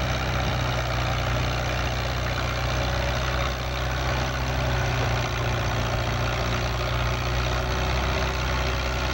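Antique farm tractor engine idling steadily, a low, even engine note with no revving.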